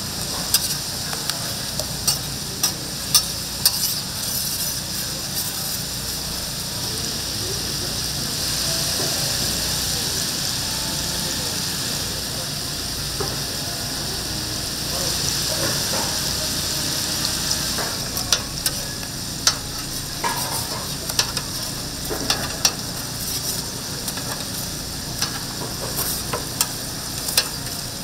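Tteokgalbi (grilled short-rib patties) sizzling steadily as they cook, swelling louder twice in the middle. Sharp clicks and taps come at irregular moments near the start and through the second half.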